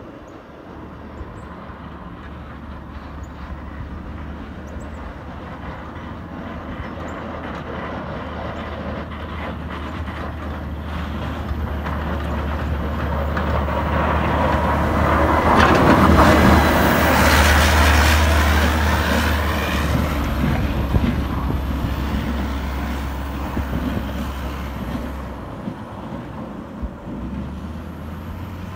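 CAT 950M wheel loader's diesel engine running under load as it plows snow with its front blade and wing. It comes closer, is loudest as it passes about sixteen seconds in, then fades as it moves away. The rush of snow being pushed and thrown by the blade is strongest as it passes.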